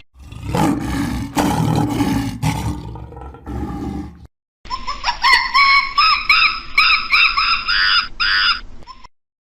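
Two different animal recordings one after the other. First come low grunts and growls for about four seconds. After a brief break comes a quick run of about ten repeated high-pitched calls, roughly two a second.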